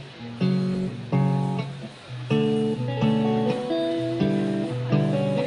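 Live band music: guitar chords strummed in a steady repeating rhythm, each chord struck about every 0.7 seconds, with a few held higher notes over them partway through.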